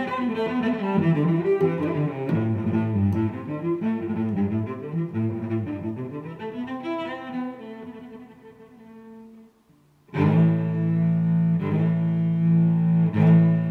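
Background music: a melodic passage that fades out about ten seconds in, followed by a new passage of held low notes.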